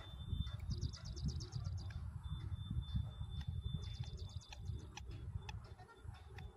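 A small bird's rapid high trill, heard twice, each run lasting about a second, over a steady low rumble and a faint steady high whine.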